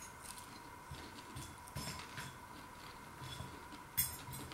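A man chewing mouthfuls of crunchy battered scampi, soft and irregular, then one sharp clink of a metal fork against the bowl about four seconds in.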